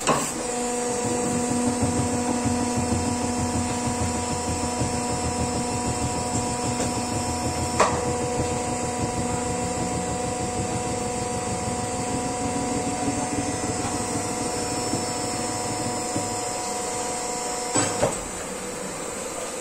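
Vertical broaching machine running through a cut: a steady machine hum over a low rumble, with a sharp metallic clank about eight seconds in and two more close together near the end.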